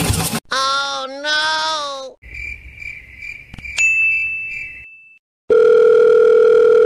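A string of cartoon sound effects: a short two-note voice-like sound, then a pulsing chirp with a bright ding about halfway, like an idea chime. In the last second and a half a loud, steady telephone dial tone starts.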